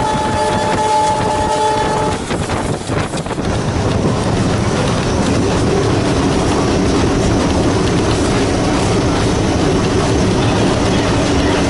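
WDG-3A Alco diesel locomotive's horn sounding as a steady multi-tone blast that cuts off about two seconds in. After it, the locomotive's V16 diesel engine runs steadily under load, with wheel and rail noise from the moving train.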